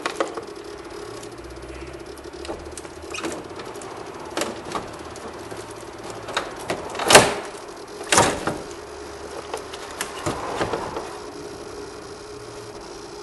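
A new car battery's plastic case being lowered by hand into its tray in the engine bay: several knocks and scrapes against the tray and surrounding panels, the two loudest about seven and eight seconds in, over a steady low hum.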